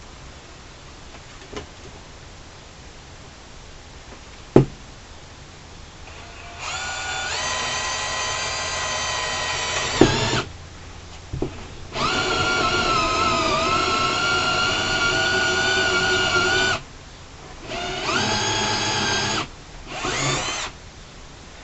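Power drill boring a hole for wiring, running in four bursts, each a steady whine, the second the longest and the last very short. A single sharp click comes about four and a half seconds in, before the drilling starts.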